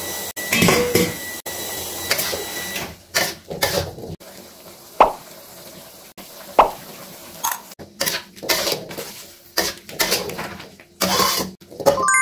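Metal spatula scraping and clanking against a wok as vegetables are stir-fried, in irregular strokes. A steady hiss runs under the first three seconds.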